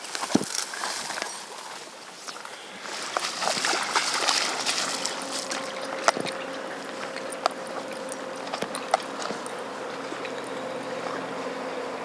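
Flowing river water, with footsteps crunching on gravel and stones along the bank as scattered sharp clicks. About five seconds in, a steady low hum comes in underneath.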